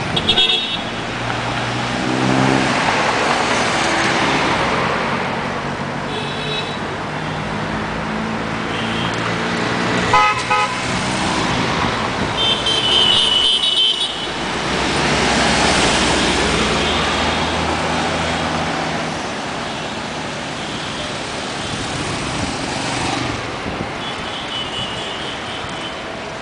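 Road traffic at a city signal junction: cars and motorcycles driving past, their noise swelling as each goes by. Vehicle horns toot several times, the longest about halfway through.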